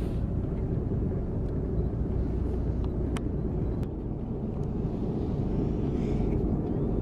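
Tour boat's engine running steadily at low speed, a continuous low rumble, with a few faint clicks.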